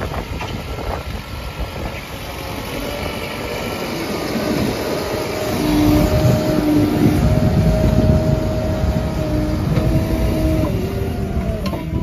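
Tata Hitachi Shinn Prime backhoe loader's diesel engine running as the machine works over loose dirt, getting louder about halfway through. A steady whine that shifts in pitch every second or so runs over it in the second half.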